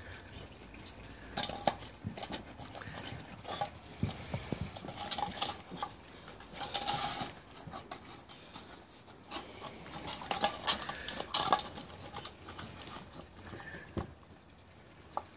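Puppies play-fighting: claws clicking and scrabbling on paving slabs in irregular bursts, with short puppy noises mixed in.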